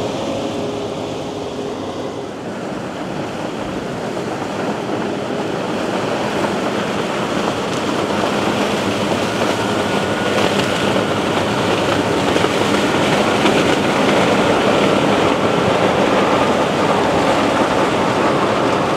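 Fendt IDEAL 7T track combine harvesting standing corn with a 12-row Geringhoff chopping corn head: a steady, dense rushing din of the engine, threshing and stalk choppers. It grows louder from about four seconds in as the machine draws near.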